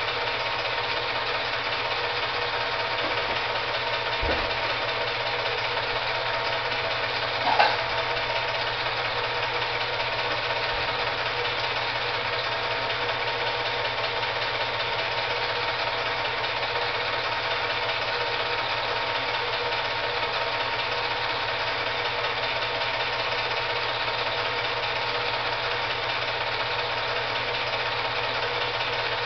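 Steady mechanical whirring with a constant hum, typical of an 8mm film projector running, with one brief click about seven and a half seconds in.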